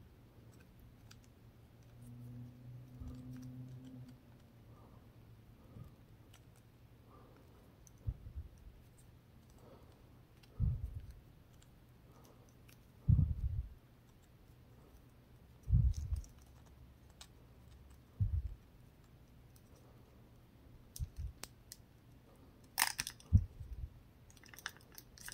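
Faint handling of plastic action-figure parts: a few dull knocks a couple of seconds apart as a plastic fire-blast piece is worked into the figure's mouth, then a short run of sharp plastic clicks near the end.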